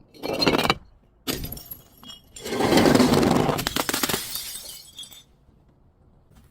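Glass bottle breaking: three bursts of cracking and shattering glass, the last one the longest, about two and a half seconds.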